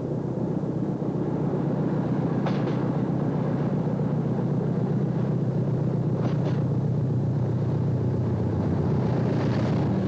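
Hastings diesel-electric multiple unit approaching and passing beneath, its English Electric diesel engine giving a steady low rumble that grows gradually louder as the train draws near.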